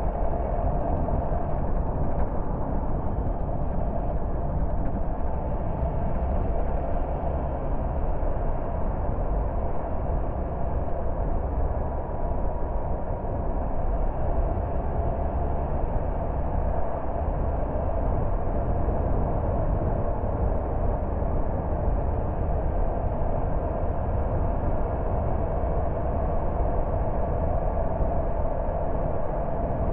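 Steady running noise of a car being driven: engine and tyre rumble, even throughout with no sudden events.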